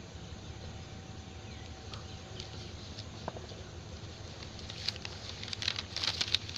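Railway platform ambience: a low steady hum, with a scatter of short, sharp clicks and ticks that start about two thirds of the way in.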